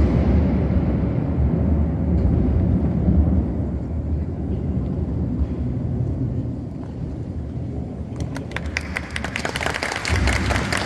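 A low, steady rumble, then audience applause starting about eight seconds in.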